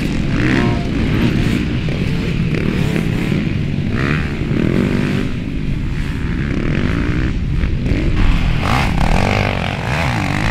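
Motocross dirt bikes revving hard as they ride past on a dirt track, their engine pitch rising and falling with the throttle as they take jumps and bends.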